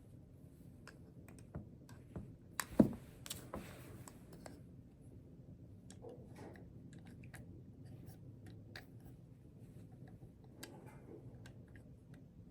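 Faint, scattered small plastic clicks and taps from handling wireless earbuds and their charging case, with one sharper click about three seconds in followed by a brief rustle.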